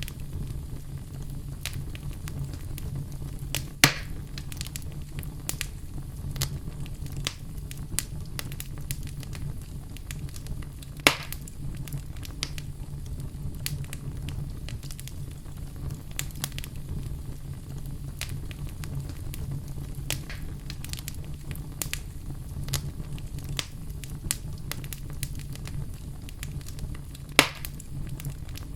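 Fire burning in a fireplace: a steady low rumble of flames with constant small crackles, and three sharper, louder pops spread through the stretch.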